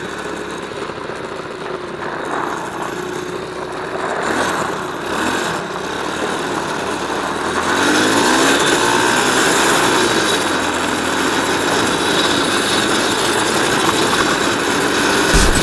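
Small 125 cc quad's engine running while riding across snow, its pitch rising and falling with the throttle and growing louder from about halfway as it speeds up. Music cuts in at the very end.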